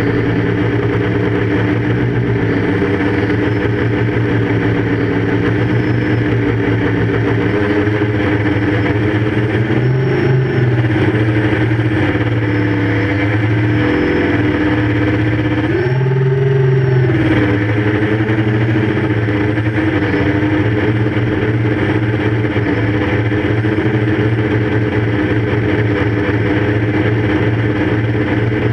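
QAV 500 quadcopter's electric motors and propellers humming steadily, heard close up from its onboard GoPro, the pitch wavering about eight seconds in and again around sixteen seconds in as the motor speeds shift.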